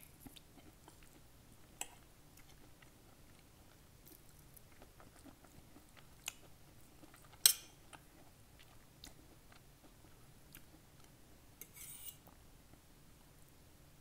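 Close-up chewing of a mouthful of sautéed collard greens: soft, scattered mouth clicks. One sharp, louder click comes about halfway through.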